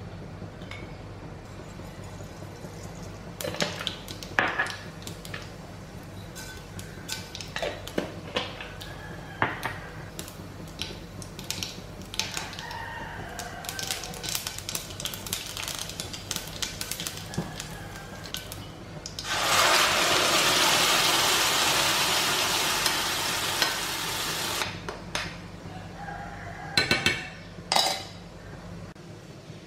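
Cooking in a stainless steel frying pan: scattered crackles and clicks as spices fry in hot oil, then about two-thirds of the way in a loud sizzle lasting about five seconds as the ground coconut chutney goes into the hot oil. Near the end come a couple of sharp knocks of a utensil on the pan.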